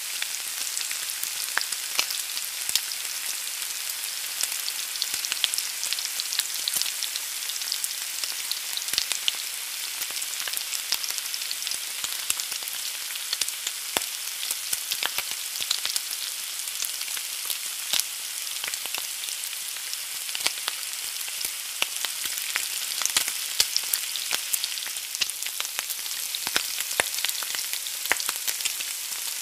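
An egg frying in a pan: a steady sizzle, thick with small crackles and pops.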